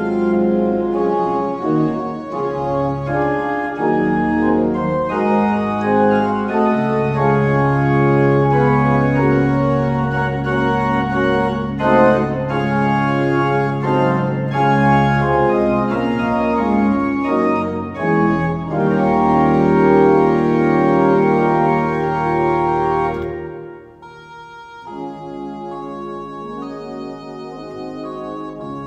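Organ playing loudly in many-voiced chords, with deep bass notes held underneath. About 23 seconds in, the sound breaks off and the playing continues much softer and thinner.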